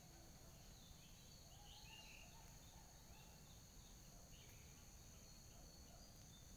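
Faint outdoor ambience, close to silence: a steady high insect drone with a few soft, scattered bird chirps.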